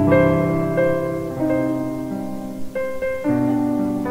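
Background piano music: held chords, with new notes struck every second or so.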